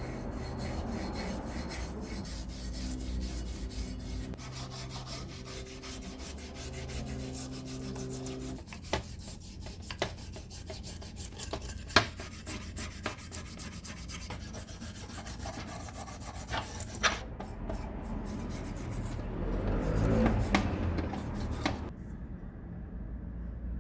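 Rapid hand rubbing and scraping strokes on a rusty part of a Makita electric planer being cleaned, with a steady low hum under the first eight seconds and a few sharp knocks in the middle.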